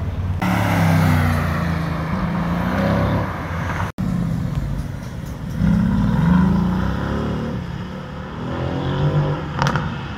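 Lamborghini Urus's twin-turbo V8 revving suddenly about half a second in and running loudly. After a cut, another car accelerates past with its engine note rising, and a sharp crack comes near the end.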